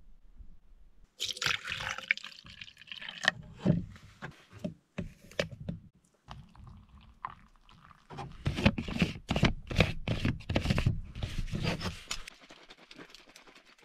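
Water poured from a plastic cup into a plastic shaker bottle of powder. About eight seconds in, the closed bottle is shaken hard for some four seconds: quick, even knocks with liquid sloshing.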